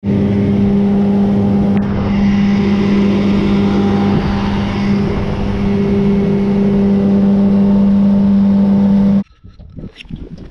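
Small boat's outboard motor running steadily under way, a loud, constant drone that holds one pitch. It cuts off suddenly about nine seconds in, leaving only faint knocks and rustles.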